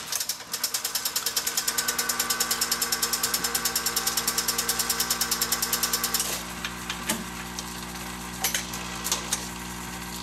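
Wurlitzer 2700 jukebox's record-changing mechanism responding to a selection: a steady motor hum with a fast, regular clicking of about ten a second as the mechanism travels. The clicking stops about six seconds in, leaving the hum and a few single clunks.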